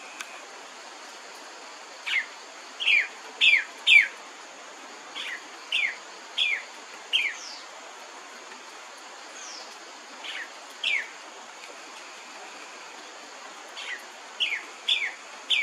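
Scarlet-rumped cacique calling: short, clear whistled notes, each sliding downward, given in runs of two to four about half a second apart, about fourteen notes in all.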